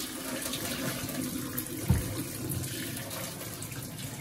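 Hot cooking water poured from a tilted pot, past its held lid, splashing steadily into a stainless steel sink basin and down the drain. A single dull thump sounds about halfway through.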